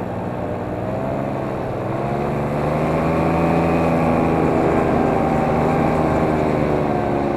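A motor running steadily, its pitch rising slowly and then easing back down over a few seconds.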